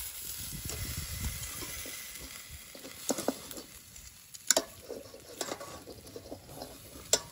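Thick bone-in rib eye steak sizzling on a charcoal grill's wire grate as it is turned with metal tongs, the sizzle loudest at first and fading. A few sharp metallic clicks of the tongs against the grate follow.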